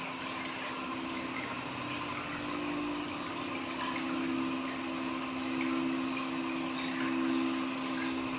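Water running steadily, with a steady low hum underneath.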